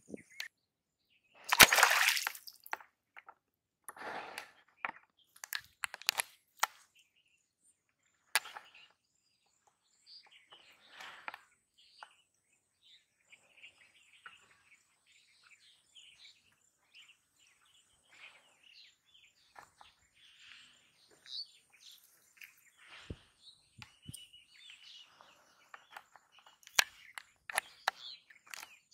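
Birds chirping over a faint, steady, high-pitched buzz, with a loud burst of noise about two seconds in and scattered short clicks and rustles.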